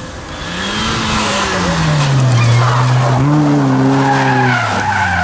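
Citroën Saxo rally car driven hard past at close range. The engine note climbs, falls away, lifts briefly again and drops as it goes by, over a hiss of tyres sliding and scrabbling on loose gravel and dust through the corner.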